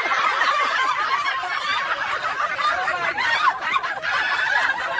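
Several people laughing together, many overlapping laughs in one continuous stretch of laughter.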